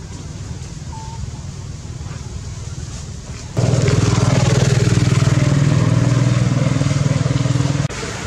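An engine running steadily with a low, pulsing hum. It comes in suddenly and much louder about halfway through, holds steady, and cuts off abruptly shortly before the end; a quieter low hum of the same kind runs before it.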